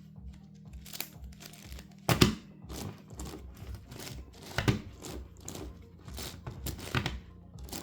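Plastic layers of a large 11x11x11 Rubik's cube being turned by hand, a run of irregular clicks and clacks with three louder clacks spread through it, as a long move sequence is worked.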